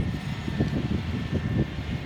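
Rice combine harvester running while it harvests, a steady low engine drone with a faint constant whine above it.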